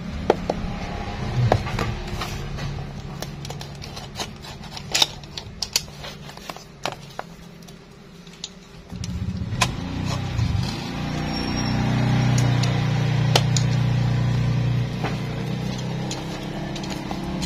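Utility knife scraping and slitting through packing tape and cardboard on a small parcel, with scattered sharp clicks and rustles as the parcel is handled. A low steady hum runs underneath, dipping and coming back louder about nine seconds in.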